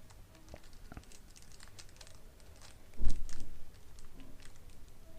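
Faint handling noises: light clicks and rustling, with a louder knock and rustle about three seconds in.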